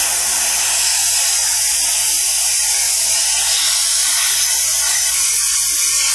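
Compressed air from an air compressor hissing steadily as it blows dust out of a desktop computer's front USB and FireWire ports and card-reader slots.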